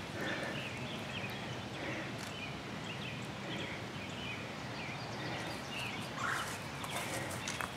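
Woodland ambience: a steady background hiss with short bird chirps scattered throughout.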